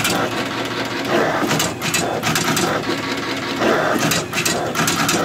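Duplo DC-745 slitter/cutter/creaser running, feeding sheets through with a steady mechanical whirr and repeated sharp clacks. The machine is stopping each sheet to press in its creases and cutting the edges.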